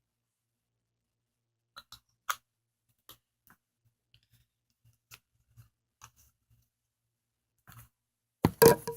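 Sparse light clicks and taps of a small plastic school-glue bottle being squeezed and handled over a mixing bowl, with one sharper tap about two seconds in. A louder burst of handling clatter comes near the end.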